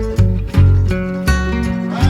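Background music: an upbeat acoustic-guitar track with a steady beat and bass.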